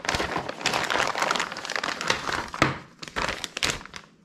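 Clear plastic zip bags crinkling and rustling as they are handled and emptied, with a sharper clack about two and a half seconds in and a few lighter clicks after it.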